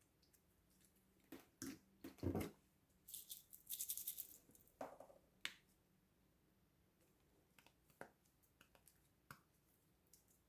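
Close-up handling sounds: scattered clicks and taps, with a short rattling crinkle between about three and four and a half seconds in.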